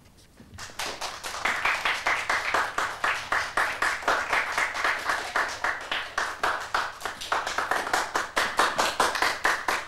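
A small group clapping in applause, starting about a second in, with the separate claps still distinct.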